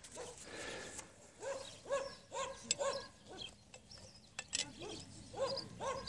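A dog barking in a run of short, high yaps, about two a second, with a pause near the middle. A few light clicks fall in between.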